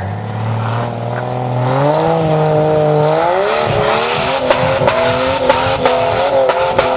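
Off-road rock buggy's engine revving up in two steps as it climbs a steep rock face, then held at high revs with the wheels spinning and throwing dirt, and sharp knocks from rocks and the chassis.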